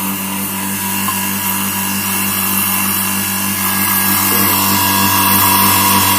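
An electric vacuum pump running steadily with a hum and a quick, even pulsing, drawing vacuum on a cylinder head to test how well the valves seal. A hiss swells from about four seconds in.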